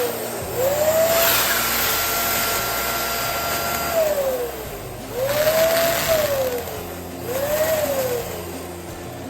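Electric balloon pump running in three bursts, its motor whine rising in pitch as it spins up and falling away as it is switched off, with a rush of air as balloons are inflated.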